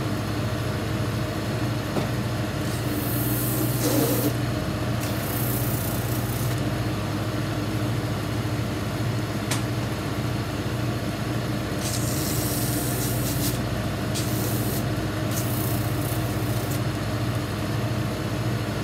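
Cobbler's shoe finishing machine running steadily, its motor and spinning sanding wheels humming. Over the hum come several hissing spells of a second or two each as leather heels and heel caps are pressed against a sanding wheel to resurface them.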